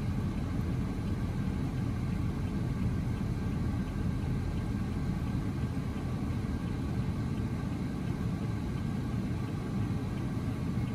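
Steady noise inside a car's cabin: the air-conditioning blower running strong against the heat, over the low hum of the engine creeping in traffic.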